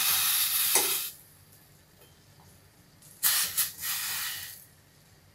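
Shallow water simmering in a hot stainless steel pan with apricot halves and apple peels, hissing and sizzling in two spells: about the first second, then again for about a second and a half past the middle.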